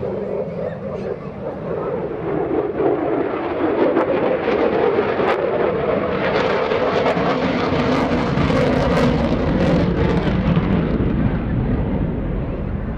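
F-35C Lightning II jet, its single F135 turbofan engine, passing loud. The noise builds over the first four seconds, holds at its loudest through the middle and eases a little near the end.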